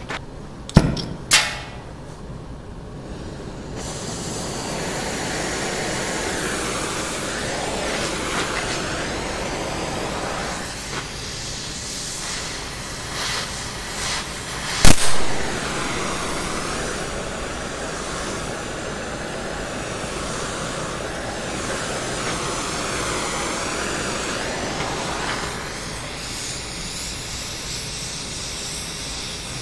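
Oxy-acetylene torch flame hissing steadily as it heats a small spot on a warped steel tabletop to shrink the metal. Two sharp clicks come about a second in, before the hiss starts a few seconds in. One sharp pop comes about halfway through.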